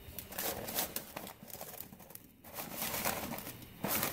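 Newspaper crinkling and rustling as it is handled, fried chicken pieces being tipped off it into a pot of gravy, with the loudest rustle near the end.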